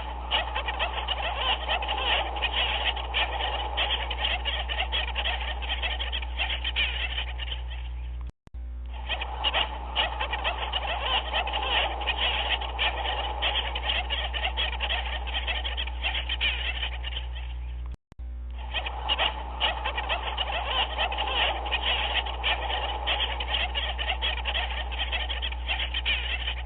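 A dense chorus of many animal calls crowding over one another, over a steady low hum. The sound is a short loop that cuts out for a moment and restarts twice, about every nine and a half seconds.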